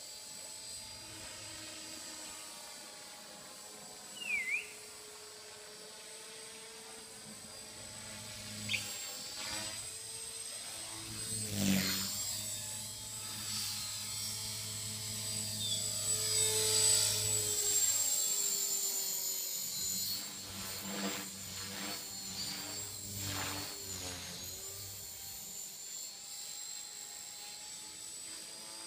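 Electric 450-size RC helicopter flying overhead: the steady high whine of its motor and rotor head, wavering in pitch as it manoeuvres and louder in the middle as it comes closer. A short chirp stands out about four seconds in.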